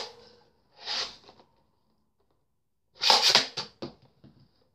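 Short bursts of plastic clacking and rattling from a Nerf Demolisher toy blaster being primed and fired. There is a sharp clack at the start and another burst about a second in. About three seconds in comes a longer, louder cluster of clacks, followed by a few light clicks.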